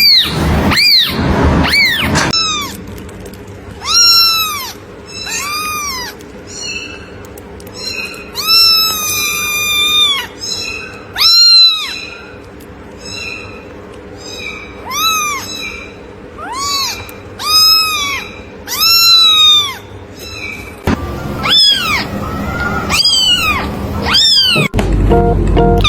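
A cat meowing over and over: a dozen or so short high meows, each rising then falling in pitch, with one longer drawn-out meow around nine seconds in.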